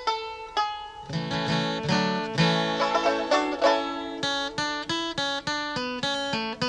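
Background music: quickly picked acoustic string instruments, with fuller, lower notes joining about a second in.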